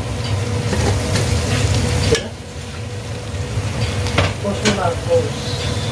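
Garlic and ginger sautéing in hot fat in a pan, sizzling steadily as they are stirred, with a few sharp clicks of the stirring utensil against the pan.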